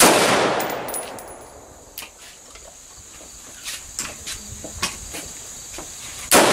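Two rifle shots from a DPMS Oracle AR-15, one right at the start and the second about six seconds later, each with a long echoing tail. A few faint clicks fall between them.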